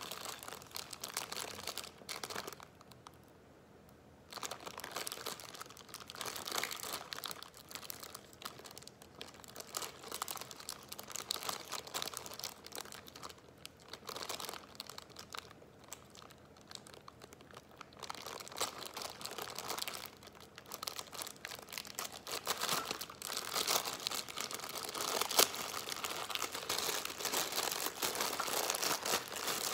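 Plastic wrapper of a Maruchan chicken ramen packet crinkling and crackling as hands work it open, in irregular handfuls with a short pause about three seconds in, growing louder and busier near the end.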